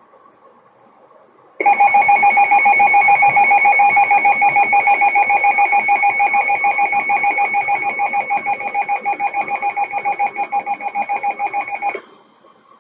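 NOAA Weather Radio alert tone: one loud steady electronic tone lasting about ten seconds, pulsing quickly in level, then cutting off suddenly. It is the attention signal that announces a warning broadcast, here a severe thunderstorm warning.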